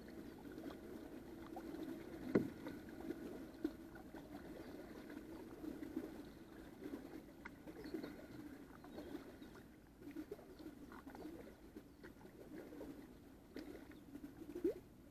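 Kayak paddle strokes through calm water: faint dips, drips and small splashes, with scattered light ticks and one sharp knock about two and a half seconds in.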